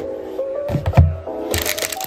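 Background music with held notes, a low thump about a second in, and the crinkle of a small plastic bag being handled near the end.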